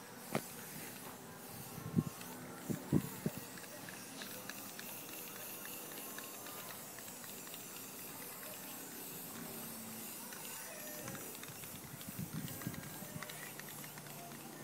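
Aerosol spray-paint can hissing as paint is sprayed onto a board, with a few sharp knocks about two to three seconds in and again near the end.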